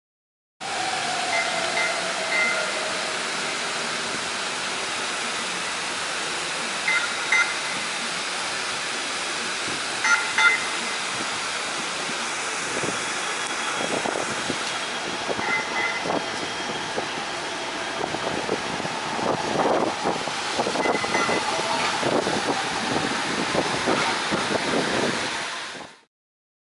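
Atlanta Streetcar's Siemens S70 tram running past on street track, a steady rolling hiss with a short falling whine near the start. A few short high tones come through, and a run of clattering knocks fills the second half before the sound cuts off just before the end.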